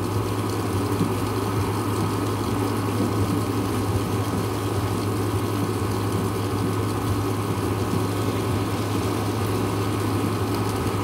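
A steady low hum with an even hiss over it, holding level with no thunderclap or other sudden sound.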